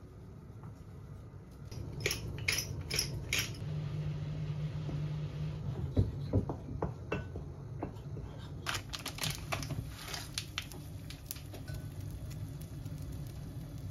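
Metal spoon clinking and scraping against a ceramic bowl while flour and water are mixed into sujebi dough, in irregular runs of sharp clicks with a couple of heavier knocks about six seconds in.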